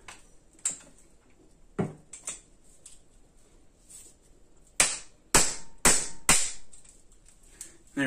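A hammer striking the butt of a flat-blade demolition screwdriver to drive the blade under the glued-in magnets of a magnetic tool-holder strip. A few light clicks come first, then four sharp strikes about half a second apart.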